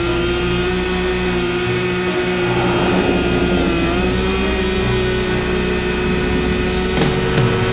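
Snowmobile engine running at a steady speed, its drone holding one pitch with a slight rise about four seconds in, and a short sharp knock near the end.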